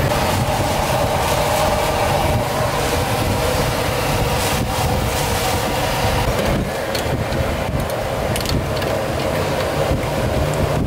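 Steady low rumble and hiss of a busy street-food stall, with scattered clicks and clinks of metal pots and utensils. The noise drops slightly about two-thirds of the way through.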